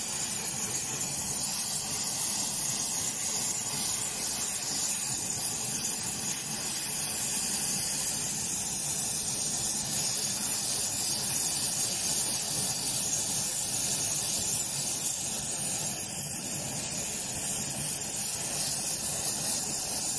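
Gas torch flame hissing steadily as it heats the cast-iron body of a bent Record 010 rebate plane, softening the metal so the bend can be straightened.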